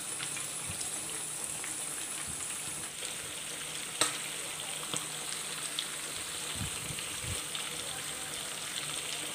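Masala-marinated chicken pieces frying in hot oil in a pan: a steady sizzle with one sharp pop about four seconds in.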